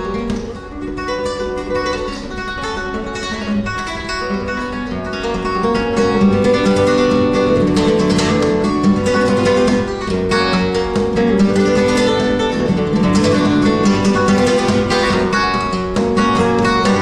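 Solo flamenco guitar playing por soleá: dense plucked notes over a ringing bass, growing louder about six seconds in.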